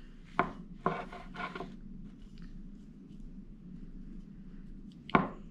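Fingers spreading and rubbing moist potting soil in a small terracotta pot: soft scraping and rustling, with a few sharper scrapes in the first couple of seconds.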